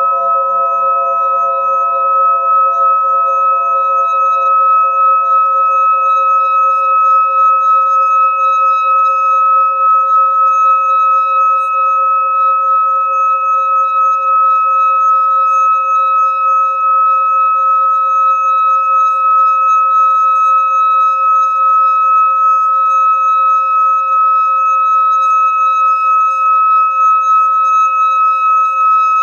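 Metal singing bowl sung by circling a mallet around its rim: one continuous ringing tone with a clear higher ring above it. It swells over the first few seconds, then holds steady with a slow wavering pulse.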